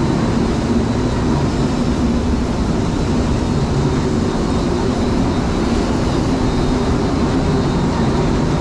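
Grain-handling machinery at a running grain elevator site, with its elevator leg and drying equipment, making a loud, steady, even drone.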